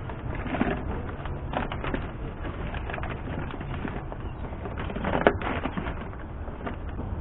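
Plastic vapor-barrier sheet crinkling and rustling as it is handled and pressed onto the door's inner panel, with a louder patch of crackling about five seconds in.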